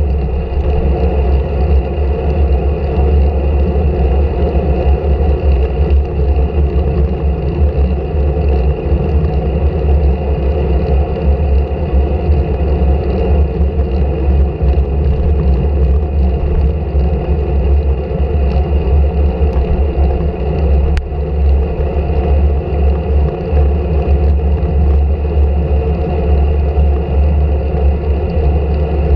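Steady low wind rumble and road noise from riding a road bike on tarmac, heard through a handlebar-mounted camera's microphone. One sharp click past the middle.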